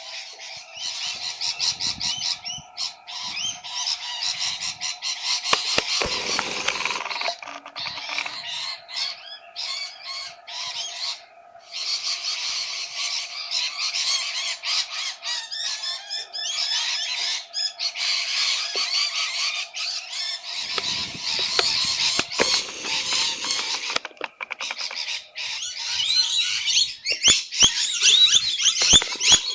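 A flock of rainbow lorikeets screeching and chattering without pause, with many rapid, high calls overlapping. It grows louder near the end.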